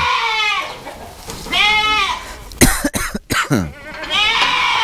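Goats bleating: three drawn-out calls, with a quick run of sharp knocks about halfway through.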